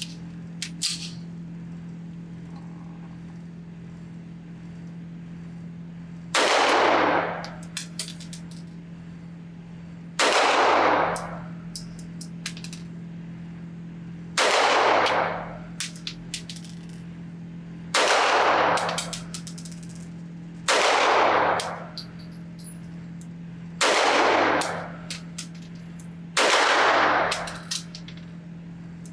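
Seven slow, deliberate shots from a ported 9mm 2011-style pistol, the Fowler Industries Vanta 9 Ported MTO, fired from the bench. The shots come about three to four seconds apart, starting about six seconds in, and light metallic clinks follow several of them, over a steady low hum.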